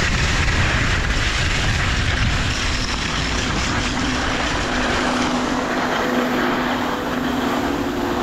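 Steady rushing noise with a heavy low rumble, typical of wind buffeting the microphone while skiing downhill; the rumble eases about halfway through and a faint steady hum comes in.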